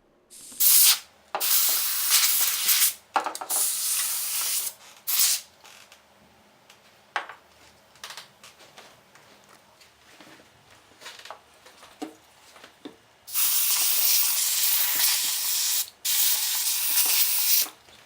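Can of compressed air blowing dust out of a laptop keyboard and the gaps around its display, in hissing blasts. There are several blasts of one to two seconds, a lull with a few faint clicks, then two longer blasts near the end.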